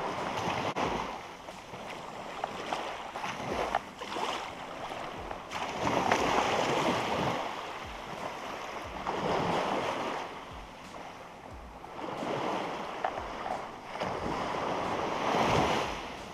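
Small waves breaking and washing up a sandy beach, the surf swelling and ebbing every three seconds or so.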